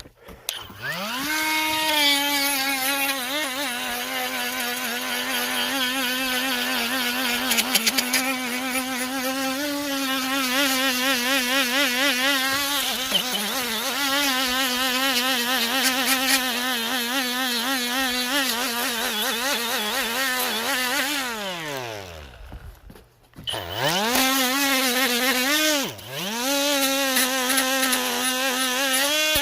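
Hyper Tough 12-volt cordless die grinder running: its motor spins up to a steady high whine that wavers slightly in pitch. About 21 seconds in it winds down and stops, then spins up again, dips in speed briefly a couple of seconds later and runs on.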